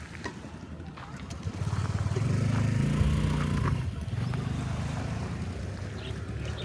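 A motor engine running close by, growing louder about a second and a half in, loudest for the next two seconds, then easing off a little.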